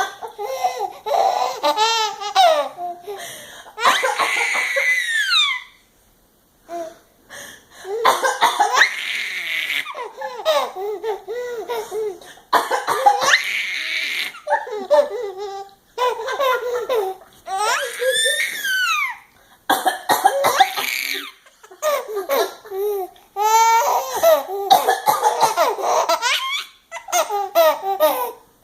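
A woman's fake coughs and sneezes, again and again, each answered by a baby's hysterical belly laughter with high squeals, in rounds a few seconds long.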